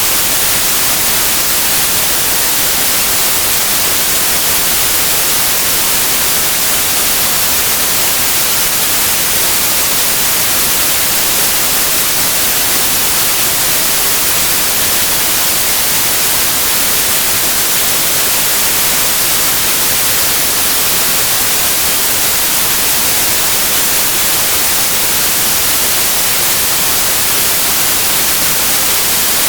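Steady, loud white noise: an even hiss across all pitches, strongest in the highs, with no melody, rhythm or change, made as a sleep sound for babies.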